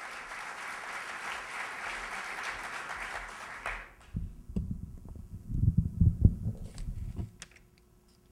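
Audience applause that stops abruptly a little under four seconds in, followed by a run of irregular low thumps and knocks picked up by the stage microphone as it is handled.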